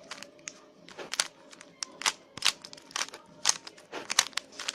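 3x3 Rubik's Cube layers being turned in quick succession, giving a rapid, irregular clicking and clacking of the plastic pieces as the last-layer algorithm is applied.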